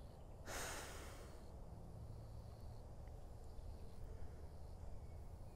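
A horse blowing out one short snort about half a second in, over a faint steady outdoor background.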